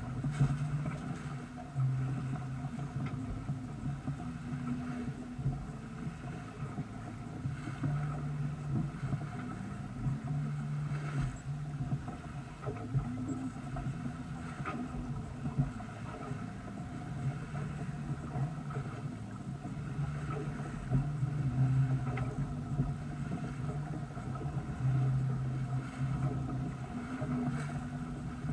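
Water rushing and splashing along the hull of a sailboat under way, mixed with wind buffeting the microphone. A low hum underneath swells and fades every second or two.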